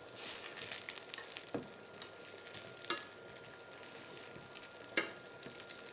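Slices of napkin dumpling frying in a pan with a low, steady sizzle, while metal tongs turn them over, clicking sharply against the pan three times; the loudest click comes near the end.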